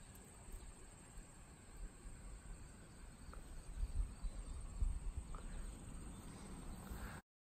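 Field ambience: a steady high-pitched insect buzz, like crickets, with wind buffeting the microphone in low gusts that grow stronger from about four seconds in. The sound cuts out abruptly just before the end.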